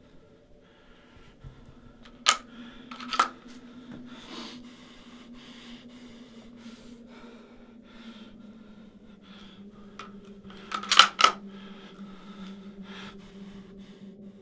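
Sharp clicks over a low steady hum: two about a second apart, two to three seconds in, then a quick group of three around eleven seconds in.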